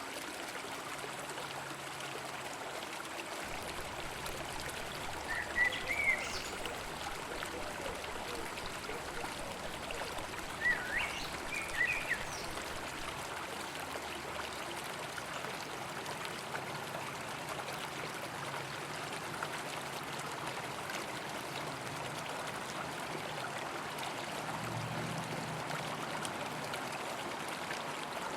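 River water flowing steadily. Two short runs of high chirps break in, about six seconds in and again about eleven seconds in.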